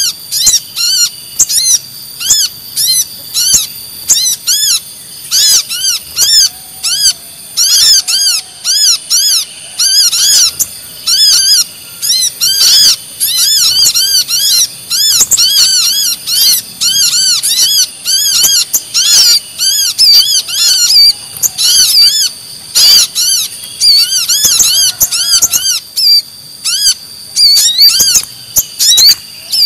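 Bird-lure recording of sunbird calls: loud, rapid high-pitched chirps, two or three a second, from a noisy brown-throated sunbird ('kolibri kelapa ribut') mixed with little spiderhunter ('sogon') calls, over a steady high ringing tone.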